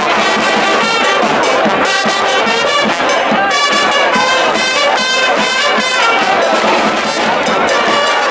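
Charanga brass band playing loudly: trumpets and trombones carry the tune over the band's percussion.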